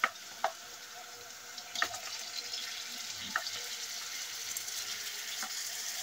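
Wooden spoon scraping raw chicken gizzards out of a plastic bowl into a pot, with about five sharp knocks of the spoon against the bowl and pot, the first the loudest. Under them the pot of onions and water sizzles steadily, growing a little louder.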